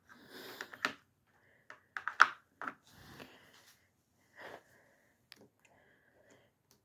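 Hand tools being handled: a 3/8 socket being fitted onto an impact driver, with scattered short clicks and rustles and one sharper click about two seconds in.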